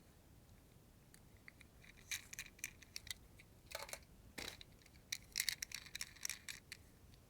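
Hands handling a diecast toy's packaging: a run of small clicks, crinkles and light rattles starting about two seconds in.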